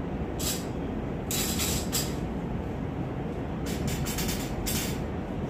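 Steady low rumbling background noise, with several short bursts of scratchy rustling and scraping as stainless steel kitchen rack parts are handled.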